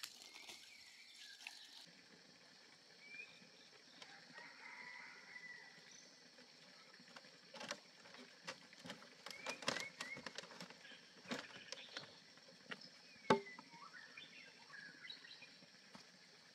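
Birds chirping here and there over a steady faint high hiss, with scattered light knocks and clatters of bamboo poles being handled, clustered in the second half, the sharpest knock about 13 seconds in.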